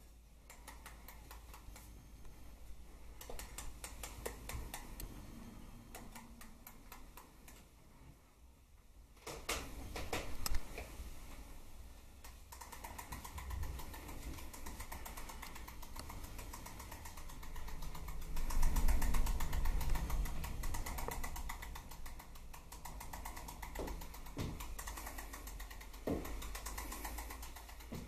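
Rapid, continuous mechanical clicking from the battery-motor wind-up key mechanism of a clockwork-automaton costume, with a sharp knock about ten seconds in and a louder stretch about two-thirds of the way through.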